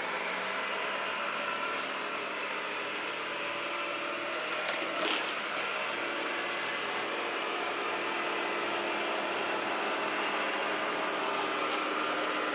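Ecovacs Deebot Ozmo 950 robot vacuum running, its suction fan and brushes making a steady whirr. A brief louder scrape of noise comes about five seconds in.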